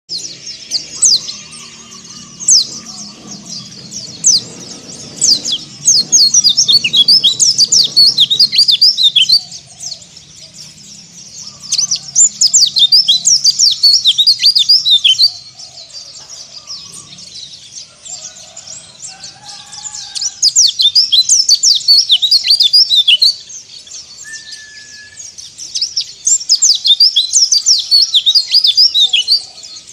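A white-eye (pleci, Zosterops) singing in rapid, high chattering bursts. After a few scattered notes, it sings four bouts of a few seconds each, with short pauses between them.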